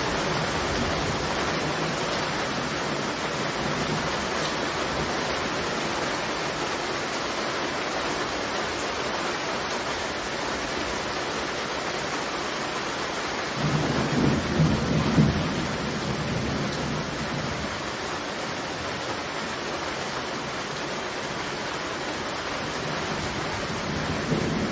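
Heavy thunderstorm: steady rain hiss, with a rumble of thunder rolling for a few seconds about halfway through and another rumble starting near the end.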